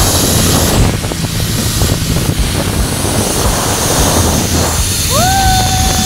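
Strong wind buffeting the microphone in a steady rumbling roar. About five seconds in, a single clear whistle-like note rises quickly and then holds steady.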